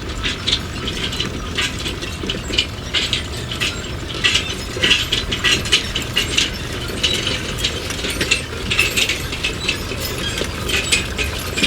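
Rapid, irregular mechanical clicking and clattering, several clicks a second, over a steady low rumble.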